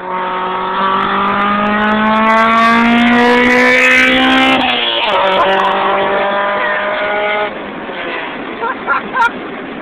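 Honda B16 DOHC VTEC four-cylinder through a Buddy Club Spec II exhaust, accelerating hard with its revs climbing. The pitch drops for a gear change about five seconds in, then climbs again until the driver lifts off near the end.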